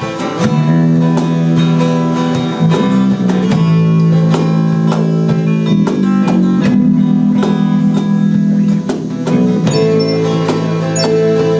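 A band playing live music, led by strummed guitar chords that shift every second or two.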